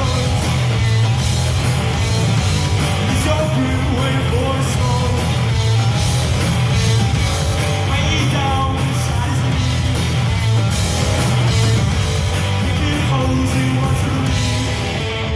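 Three-piece band playing live: two electric guitars and a drum kit, loud and steady.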